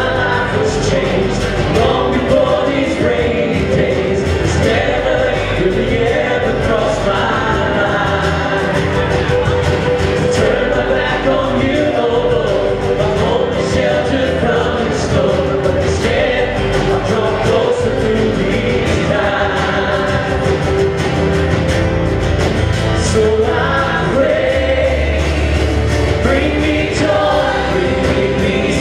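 Live church praise band playing a gospel worship song: lead vocalists and a choir singing together over acoustic guitar and a full band with a steady beat.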